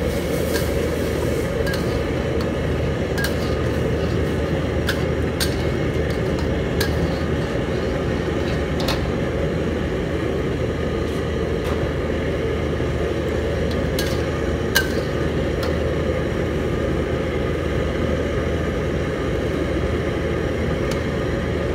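Steady low roar of a commercial gas wok burner, with scattered sharp clinks of metal against the steel wok.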